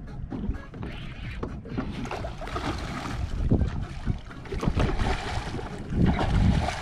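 Wind buffeting the microphone over water sloshing against a small boat, with a hooked fish splashing at the surface in the second half.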